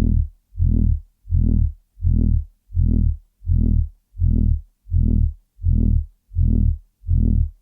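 Loud, low throbbing noise: a deep humming tone pulsing on and off evenly, about one and a half pulses a second, with silence between the pulses.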